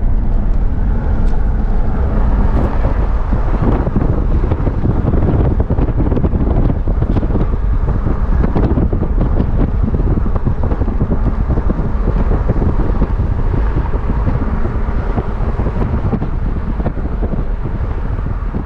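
Wind buffeting the microphone on a moving motorcycle, a steady rush over the engine and road noise underneath.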